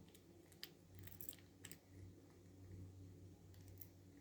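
Faint metallic clicks and small rattles of a key being inserted and turned in a freshly reassembled Paclock 90A Pro padlock to test it. A few scattered ticks come about half a second in, around a second, and near the end, over a low steady hum.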